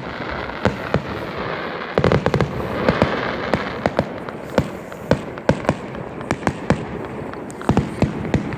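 Fireworks going off: a steady hiss with many sharp, irregular cracks and pops, thickest in a quick cluster about two seconds in.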